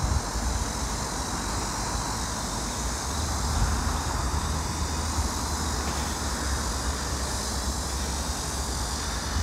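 Steady outdoor background noise: a continuous low rumble with a hiss above it and no distinct events.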